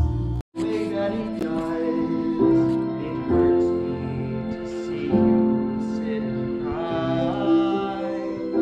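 A slow, gentle song: a young singer's held notes over backing music, after the sound cuts out abruptly for a moment just under half a second in.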